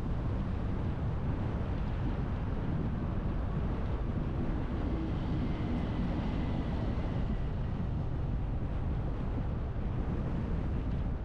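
Steady low rumble of tyre and wind noise from a Hyundai IONIQ electric car driving along, with no engine sound. A faint high whine comes and goes around the middle.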